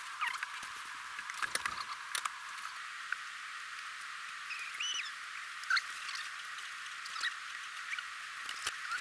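A Dometic RV refrigerator being pushed and slid into its cabinet opening: scattered knocks and scrapes, with a couple of short squeaks about halfway, as the unit rubs and bumps against the opening, over a steady hiss.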